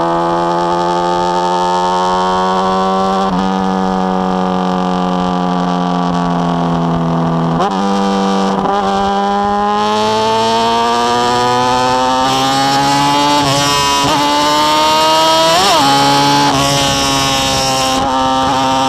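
2005 carbureted Honda Hornet's inline-four engine through a 4-into-1 exhaust, under way. Its pitch climbs slowly as it pulls, with sudden jumps and drops a few times as the throttle and gears change.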